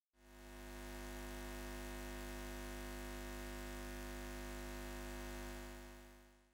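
A steady electronic drone of several held tones over a deep low tone. It fades in at the start and fades out near the end.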